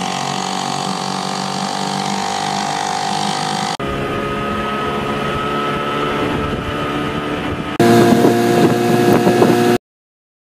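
Small outboard motors running on boats under way, in three short clips back to back: first an old small outboard, then a Johnson outboard, then a louder third engine with a rougher, pulsing note. The sound cuts off suddenly near the end.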